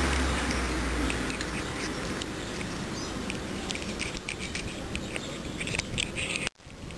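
A cat crunching dry kibble: an irregular scatter of small, crisp clicks. A low rumble fades out in the first second.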